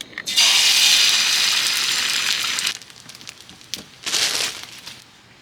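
A loud hiss lasting about two seconds that cuts off suddenly, then a shorter hiss about a second later.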